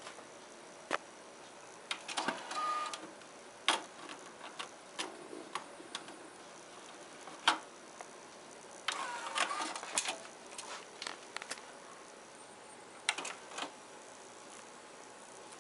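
Scattered sharp clicks and short plastic rattles as a cassette is handled and loaded into a Sony TC-K677ES cassette deck and the deck's transport is set going, with a last few clicks shortly before the end.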